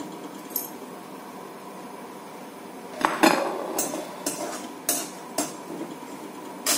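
A spoon stirring almonds and cashews frying in ghee in a kadhai, scraping and clinking against the pan. After a quiet start, from about three seconds in it clinks roughly every half second, with a louder clatter near the end.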